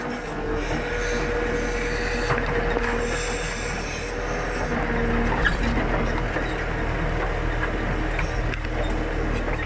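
JCB 3CX backhoe loader's diesel engine running steadily while its hydraulics work the backhoe digging, heard from inside the cab.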